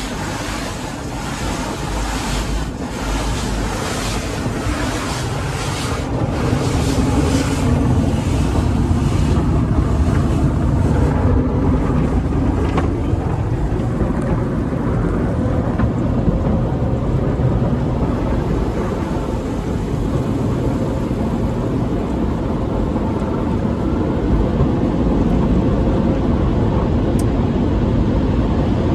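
Tunnel car wash heard from inside the car. Foam and water spray and the cloth wash strips slap and scrub against the glass and body, with repeated slaps through roughly the first dozen seconds. Under it runs a steady low rumble from the wash's pumps and motors, growing louder and more even after that.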